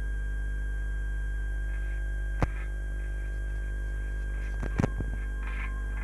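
Steady mains hum with a thin high whine on an old film soundtrack, broken by a sharp click about two and a half seconds in and a short cluster of clicks near five seconds. Faint repeated scraping strokes begin near the end.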